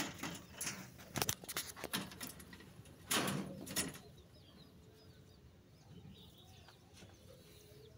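A few knocks and rustles of handling and movement at the wire-mesh rabbit hutch in the first half, then quiet with faint, high bird chirps in the background.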